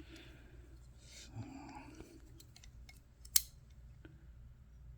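Small metal clicks and light scraping of a folding multitool's implements being handled, with one sharp click about three and a half seconds in.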